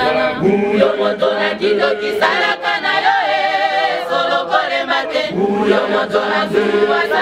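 Choir of women and men singing together, with a held, wavering note about three seconds in.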